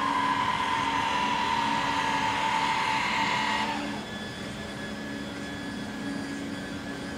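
Electric lift motor raising the carbon-fibre deck hatch of an MTI boat: a steady whine that sinks slightly in pitch, then cuts off suddenly a little under four seconds in, leaving a low steady hum.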